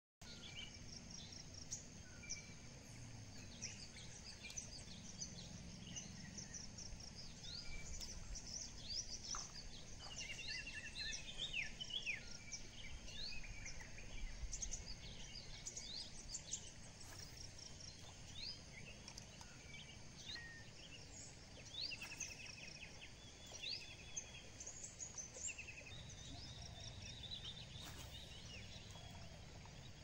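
Wild birds calling and singing: many short chirps, trills and quick whistled sweeps overlapping, over faint steady low outdoor background noise.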